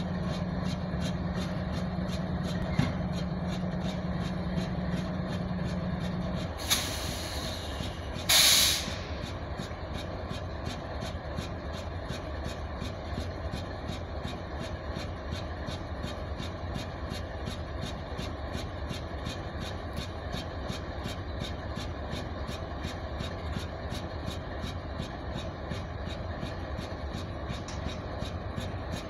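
Idling diesel train locomotive with a steady low rumble. A higher hum in it stops about six seconds in, and two short hisses of released air follow about seven and eight seconds in, the second one louder.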